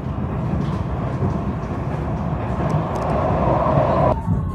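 Vienna U-Bahn train running at speed, heard from inside the car: a steady, dense rumble of wheels on rail that swells slightly, then drops off abruptly about four seconds in.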